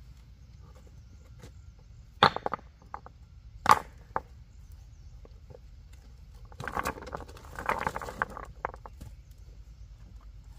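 Two sharp knocks about a second and a half apart, then a few seconds of scraping and rustling, as of manual work.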